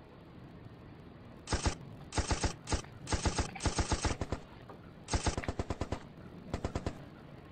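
Domestic cat chattering: rapid clicking of the jaw in a series of short bursts, about ten clicks a second. It is the excited hunting chatter a cat makes at prey it can see but cannot reach.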